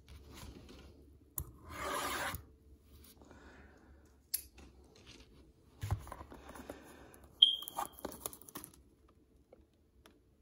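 A shrink-wrapped cardboard trading-card box being handled and lifted off a table. There is a tearing rustle about two seconds in, then scattered clicks, knocks and plastic crinkling until near the end.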